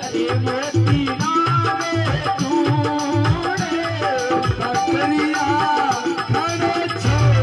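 Marwari folk bhajan music: a melodic lead line that bends in pitch over a steady hand-drum beat, in an instrumental passage between sung verses.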